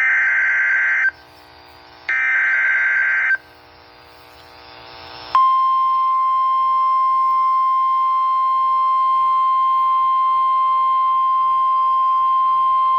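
NOAA Weather Radio emergency alert: two bursts of SAME digital header data, each about a second long with a screechy two-tone warble, about a second apart. About five seconds in, the steady single-pitch warning alarm tone starts and holds, signalling that a warning follows.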